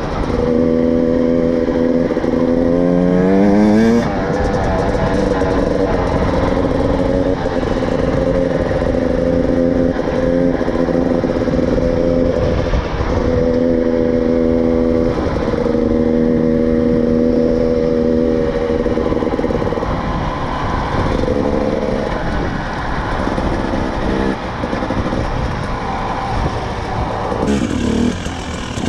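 KTM 300 TPI two-stroke dirt bike engine under way: it revs up with a rising pitch for the first few seconds, then holds a steady pitch at cruising speed, easing off and varying in the last third, with a rising rev near the end.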